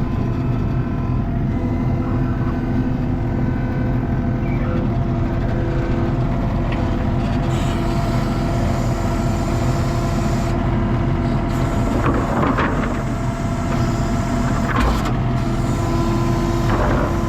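ASV RT-40 skid steer's diesel engine running steadily under work while the grapple moves wood. Three brief higher-pitched squeals rise over the engine in the second half.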